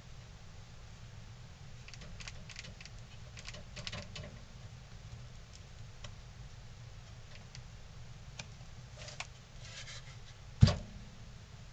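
Soft rustles and light taps of hands working wood filler over a carved wooden head, over a low steady hum. Near the end comes one sharp, loud wooden knock as the head is set down on the table.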